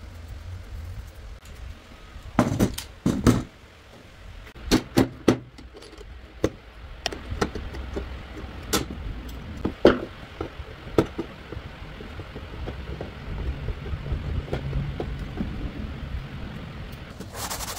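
Scattered knocks and metallic clinks, about a dozen sharp hits, as an old metal hinge strap is worked loose and lifted off a wooden lattice door frame. Just before the end a steady scratchy rubbing starts: hand sanding of the wood frame with a sanding block.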